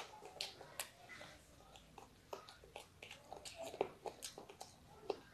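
A child eating rice and chicken curry by hand: chewing and mouth smacks, with fingers mixing rice in a metal plate, heard as many short, irregular clicks.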